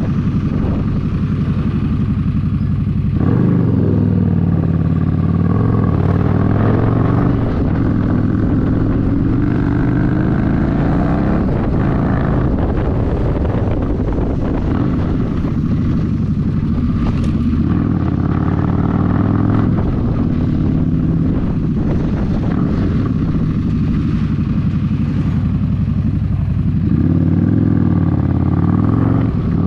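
Harley-Davidson Street Rod 750's V-twin running through a Vance & Hines aftermarket exhaust while riding, heard from the rider's seat. The engine note rises and falls repeatedly as the bike accelerates and eases off, climbing sharply about three seconds in and again near the end.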